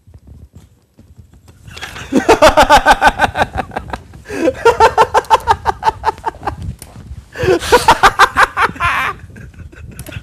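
Man laughing hard in three long bouts of quick, rhythmic "ha-ha" pulses, starting about two seconds in.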